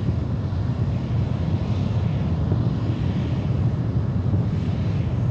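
Space Shuttle Main Engine, a liquid-hydrogen/liquid-oxygen rocket engine, firing steadily in a static ground test: a continuous deep rumble of rocket exhaust at an even level.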